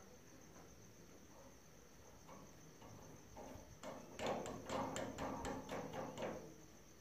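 Wing nut spun by hand down the threaded tensioning bolt of a steel hacksaw frame: a quick run of light metallic clicks and rattles, about four a second, beginning about four seconds in and lasting some two seconds. A faint steady high-pitched tone sounds underneath.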